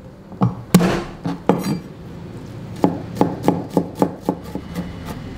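Chef's knife striking a wooden chopping board: a few separate sharp knocks as garlic cloves are smashed with the blade, then a quicker run of chopping knocks, about three to four a second, as the garlic is minced.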